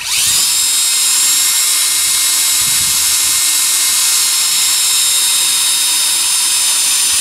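Cordless drill starting abruptly and running steadily at a high whine as it bores a small bolt hole through an aluminium body panel.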